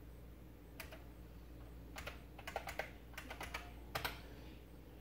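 Keystrokes on a computer keyboard typing a short command: scattered key clicks, with a quick run of them in the middle, over a faint steady low hum.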